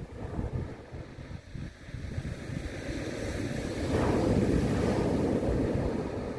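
Sea waves with wind buffeting the microphone; a wave swells from about three seconds in and breaks into a loud wash, easing slightly near the end.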